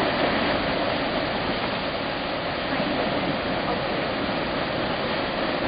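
Tad Fane waterfall, a steady rushing of falling water with no breaks.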